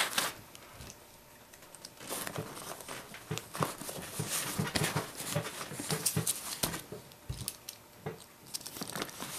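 Hands working a tactical-nylon range bag: the fabric rustles and scuffs with small irregular clicks as foam plugs and speed loaders are pushed down into its magazine pouches.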